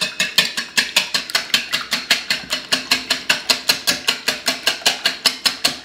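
Wire whisk beating eggs and milk in a bowl, the wires clicking against the bowl's side in a fast, steady rhythm of about six or seven strokes a second.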